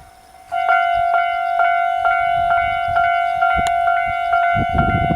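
Japanese railway level-crossing warning bell starting up about half a second in and ringing steadily at about two strikes a second, signalling an approaching train. A low rumble joins near the end.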